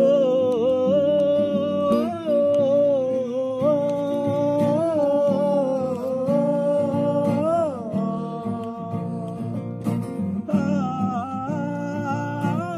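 Acoustic guitar strumming under a wordless melody carried on a single high, wavering tone. The melody starts with an upward slide and breaks off briefly about eight seconds in, then picks up again.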